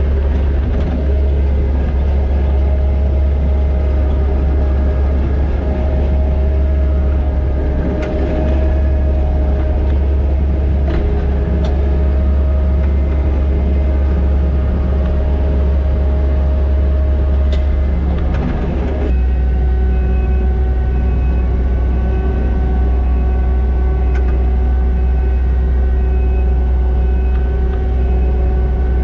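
Kubota skid steer's diesel engine running steadily while working a Harley power rake through topsoil. About 19 seconds in, the sound shifts abruptly to a different steady pitch.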